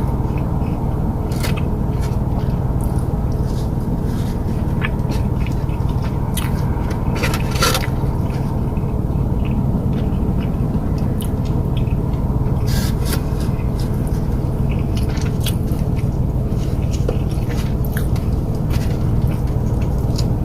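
Close-up eating of barbecue ribs: scattered short clicks, scrapes and squishes of tearing and biting the meat and handling the takeout container, over a steady low rumble.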